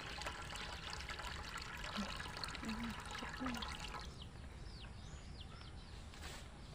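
Thick cassava batter pouring from a pot into a wide metal wok, a splashing trickle that stops about four seconds in. After it, birds chirp.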